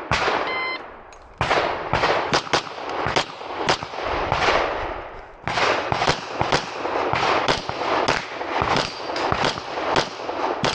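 An electronic shot timer beeps once about half a second in, then a rapid string of pistol shots follows, roughly three a second, with a short pause near the middle of the string.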